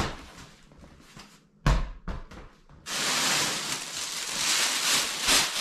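A thump about a second and a half in, then loud continuous crinkling and rustling of a clear plastic nylofume bag stuffed with gear as it is lifted and handled.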